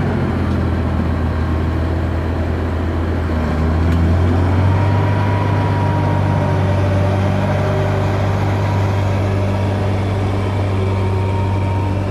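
Crawler bulldozer's diesel engine running steadily as it pushes earth with its blade, a low drone that swells slightly about four seconds in.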